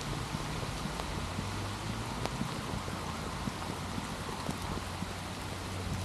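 Steady rain falling on wet paths, leaves and park fixtures, with single drops ticking sharply close by. A low steady hum runs underneath.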